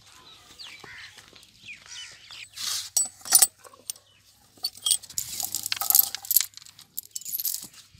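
A buffalo's iron tether chain rattling and clinking in several bursts as it is unhooked from a wooden stake in the ground.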